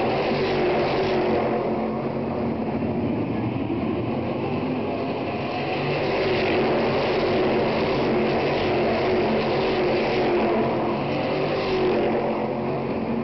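Stock Car Brasil race cars' engines running at racing speed as cars pass along the track one after another. The sound is loud and continuous, swelling and easing slightly as cars come by.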